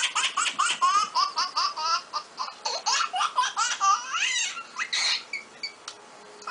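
Baby laughter ringtone playing through a phone speaker: quick, evenly repeated giggles for about four and a half seconds, trailing off just after.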